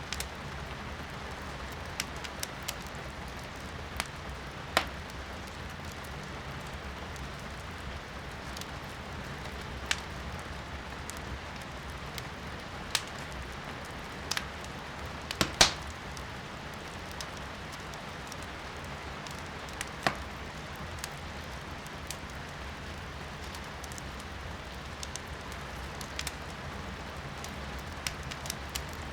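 Firewood burning in a fireplace, crackling with scattered sharp pops, the loudest about halfway through, over a steady hiss of rain.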